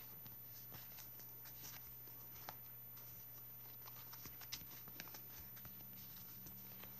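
Faint rustling and scattered soft clicks of hands working a fluffy wool pompom and its cardboard rings, pulling a yarn knot tight, over a steady low hum.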